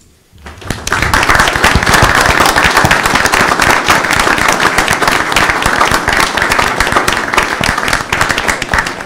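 Crowd applauding, many hands clapping together. It swells up within the first second and thins out near the end.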